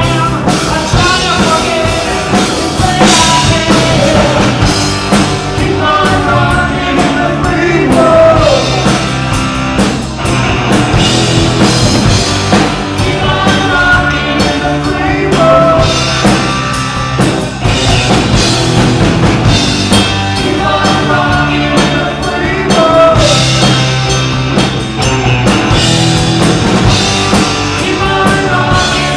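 A live rock band playing a full-band rock song: a male lead singer over distorted electric guitars, bass and a drum kit, loud and steady.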